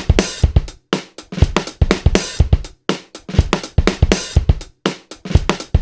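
Background music with a drum kit beat: kick, snare and hi-hat in a steady rhythm.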